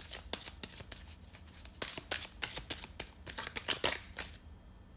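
A tarot deck being shuffled by hand: a quick, irregular run of card slaps and rustles that stops about four seconds in.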